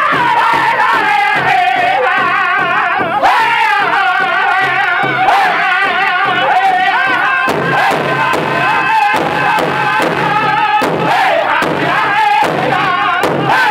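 Powwow drum group singing an intertribal song in high, wavering voices over a steady beat on a large hide-covered powwow drum struck by several drummers.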